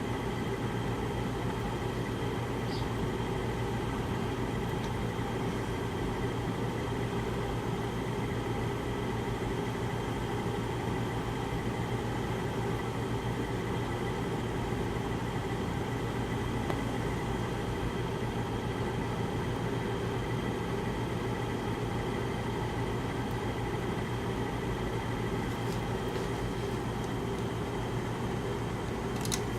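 Room air conditioner running steadily: a constant fan rush with a low hum and faint steady high tones. The owner says the unit is not cooling properly, as the room keeps warming while it is set to 60 degrees.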